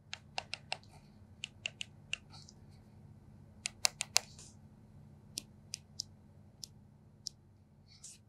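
Side control buttons of a FiiO M17 portable music player pressed repeatedly by thumb: a string of sharp clicks, some in quick runs, the loudest cluster about four seconds in.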